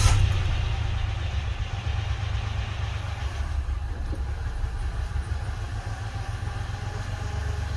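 2014 Mitsubishi Mirage's 1.2-litre three-cylinder engine running just after being started. The start-up rev flare eases over the first few seconds into a steady idle.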